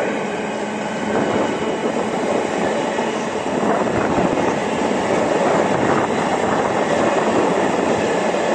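Container freight train wagons passing close by along the platform, loaded and empty intermodal flats, their wheels making a steady, loud rumble on the rails.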